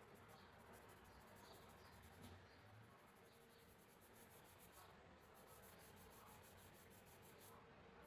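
Near silence: faint steady hiss of room tone.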